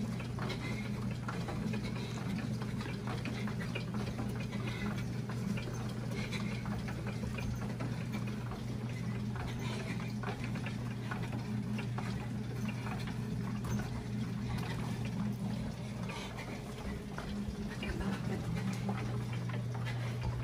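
ProForm hybrid elliptical trainer being pedalled steadily: a low, even hum with light ticking and clicking from the moving pedals and linkage. The hum eases briefly about three-quarters of the way through, then picks back up.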